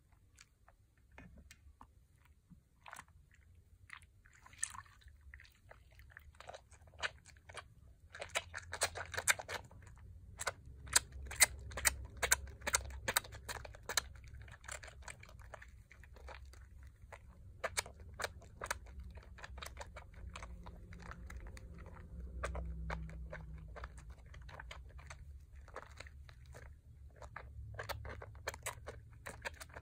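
Bars of Pears soap worked between wet hands in a metal bowl of soapy water, the thick foam squishing and crackling in quick wet pops. The crackling comes in dense runs, busiest about a third of the way in.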